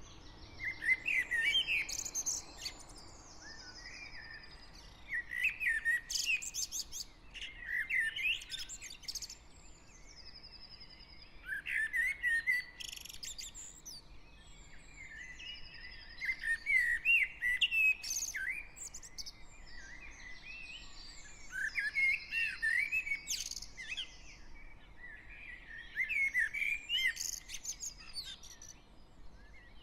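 Dawn chorus of garden birds: several birds singing at once in overlapping, repeated phrases of chirps and trills. A faint low hum of distant traffic sits underneath.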